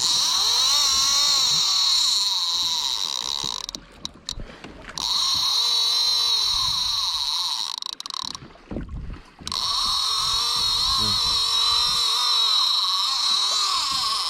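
A fishing reel whining in three long stretches with two short pauses, its pitch wavering slightly.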